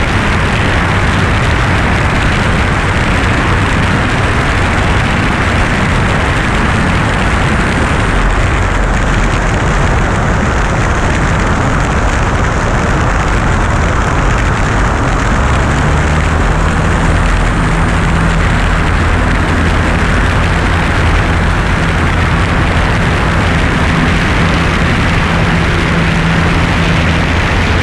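Single-engine light aircraft's engine running, with a steady rush of wind on the wing-mounted camera as the plane rolls along the runway. The low engine drone stands out more from about halfway through.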